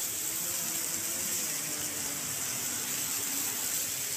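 Heavy rain falling, a steady hiss, with faint road traffic underneath.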